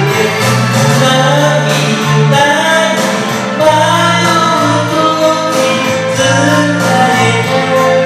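Karaoke of a Japanese pop song: a backing track of sustained chords with a singing voice over it.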